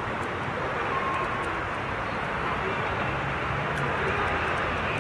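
Kintetsu 2400 series electric train running slowly over pointwork as it approaches: a steady running noise of wheels on rail and traction gear, with no sudden knocks.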